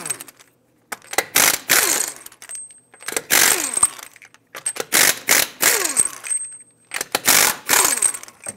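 Half-inch pneumatic impact wrench with a 21 mm socket hammering lug nuts loose, in four bursts of about a second each, its pitch dropping as each burst ends.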